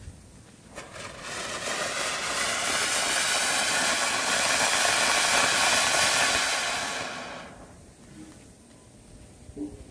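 Flower pot firework (ground fountain) spraying sparks with a steady, rushing hiss that swells in about a second in, holds, and dies away a couple of seconds before the end.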